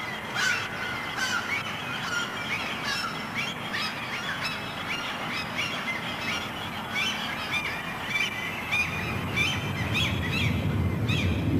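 Small birds chirping: many short, quick chirps, a few a second, over a steady background hiss, with a low rumble growing near the end.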